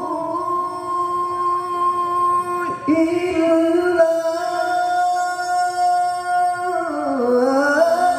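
A male qari's voice holding long, high notes in melodic Quran recitation (tilawah), with a brief break about three seconds in. Near the end the held note dips in pitch and then climbs back.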